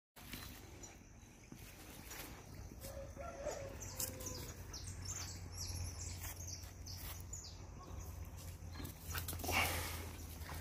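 Bandog puppy tugging and shaking a bite rag on a rope, giving small dog noises over scattered clicks and rustling. A louder noisy burst comes about nine and a half seconds in.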